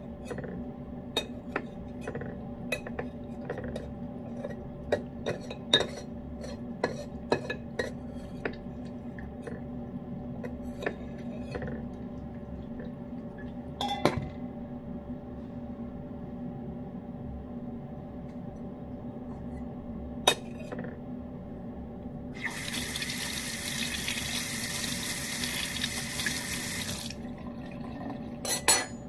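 A metal spoon clinks and scrapes against a tin of flaked wet cat food and the food bowl, in dozens of quick sharp clicks over the first dozen seconds and a few more later. About two-thirds of the way through, a water tap runs for about four seconds and then shuts off.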